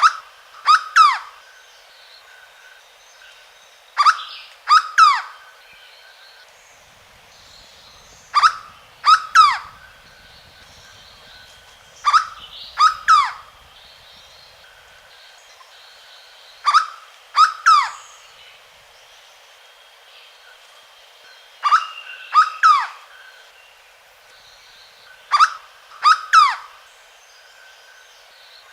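Hooded berryeater (corocoxó) singing. It repeats a loud phrase of two or three ringing notes, each falling steeply in pitch, about every four seconds, seven times.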